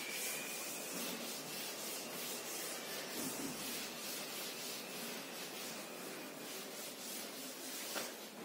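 A cloth duster rubbing chalk off a chalkboard in repeated back-and-forth wiping strokes, making a steady scratchy hiss, with a light knock near the end.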